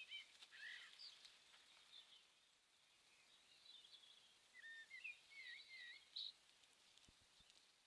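Near silence with faint, high bird-like chirps in two short bouts, one at the start and one about four to six seconds in.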